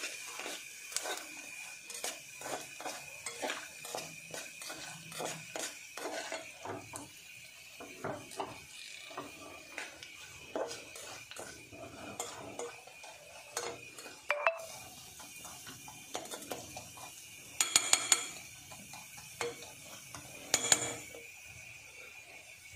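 A metal utensil stirring and scraping in a small aluminium pan of frying nux vomica slices in ghee, clicking against the pan about three times a second at first, then more slowly, with a faint sizzle. Two louder metal clatters come near the end, about three seconds apart.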